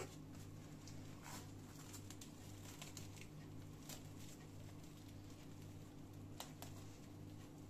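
Faint, scattered crinkles and rustles of plastic cling film as it is handled and pressed around a rolled ladyfinger cake, over a low steady hum.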